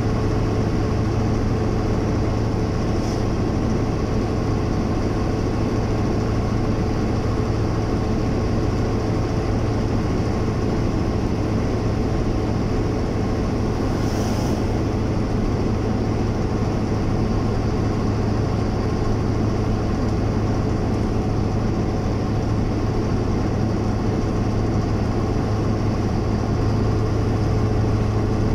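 Steady engine and road noise inside a moving vehicle cruising on a paved road, a constant low hum that does not change.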